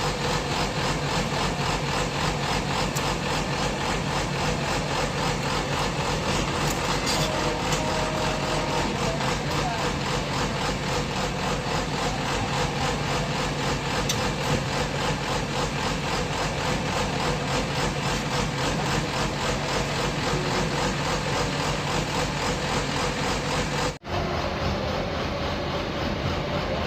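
Engine of a remote-controlled water-well drilling rig running steadily with an even, rapid pulse, cutting out for an instant near the end.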